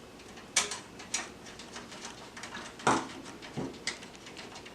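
Scattered small metal clicks and knocks as thumb screws are worked out of a PC case's expansion slot covers and handled, the loudest knock about three seconds in.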